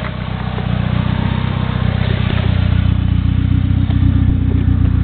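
Turbocharged 4G63 four-cylinder of a first-generation DSM idling steadily through a 3-inch turbo-back exhaust with a Flowmaster muffler.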